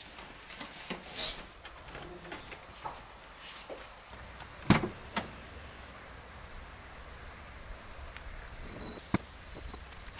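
Scattered knocks and clunks of bricks being handled in a car's open boot, the loudest two sharp knocks about halfway through and another near the end.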